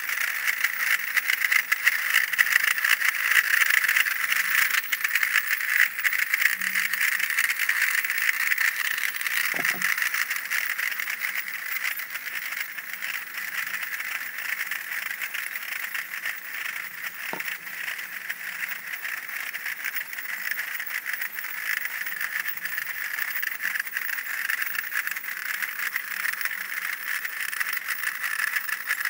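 Fasnacht drums and piccolos of marching cliques, heard as a dense, continuous rattling clatter, louder in the first several seconds and easing a little after.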